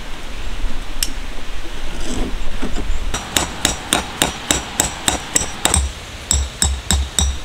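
A metal tent peg being hammered into the ground. The strikes are sharp and steady, about three a second, starting about three seconds in, and each one has a brief metallic ring.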